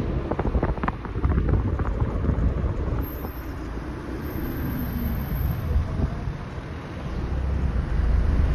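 Wind buffeting the microphone from a moving car, over the low rumble of tyres and engine on the road; the rumble grows louder near the end.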